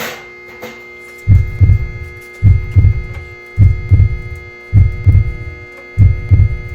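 Background music: a deep, heartbeat-like double bass thump about once a second over a sustained droning chord.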